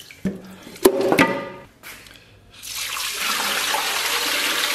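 A few knocks and a short metallic clank as pork bones are set into an aluminium pressure-cooker pot. About halfway through, water starts pouring from a bowl into the pot and keeps gushing steadily, filling it over the bones.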